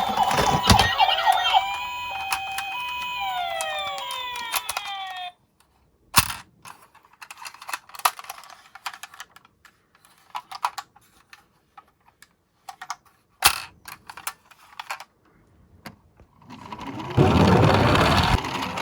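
Electronic siren of a toy ambulance, a two-tone pitch stepping up and down with sliding tones, cutting off suddenly about five seconds in. Then scattered clicks and knocks of plastic toy cars being handled, and near the end the rumble of a toy car rolling down a slope.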